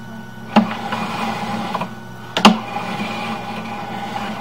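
Sewer inspection camera's push cable being pulled back out of the line, a steady mechanical rattle with two sharp knocks, about half a second and two and a half seconds in.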